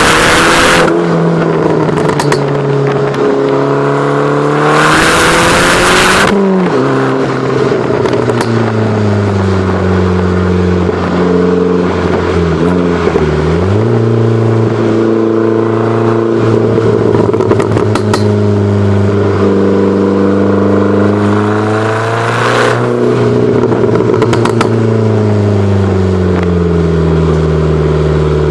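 Fiat Grande Punto Abarth's 1.4-litre turbocharged four-cylinder running under load, its revs climbing and then dropping sharply several times as with gear changes. Loud rushes of noise come in at the start, about five seconds in, and again about twenty-two seconds in.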